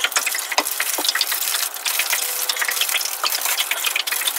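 Thin plastic bag crinkling and rustling as a removed engine part is pushed into it.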